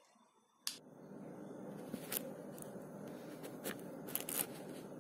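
A sharp click, then a faint steady hiss with a few short clicks and scrapes, typical of a phone being handled while filming up close.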